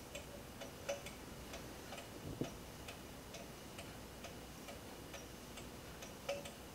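Small beta-type Stirling engine sitting on a mug of hot water, running steadily, its flywheel and crank linkage giving a faint, quick ticking of several clicks a second. The engine is running on the temperature difference between its heated bottom plate and its cooler top plate.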